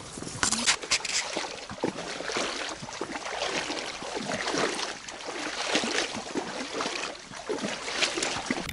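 Small boat being paddled through dense rice stalks: irregular swishing and rustling of stalks against the hull, with water splashing.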